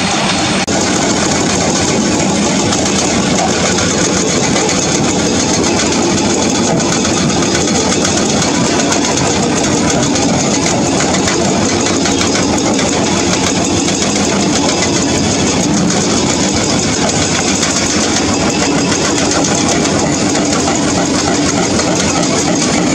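Hydraulic breaker on a Doosan DX225LCA excavator hammering limestone, a rapid, continuous pounding with the excavator's diesel engine running under it.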